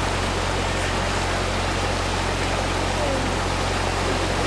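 Swollen, fast-flowing river water rushing steadily, with a constant low hum underneath.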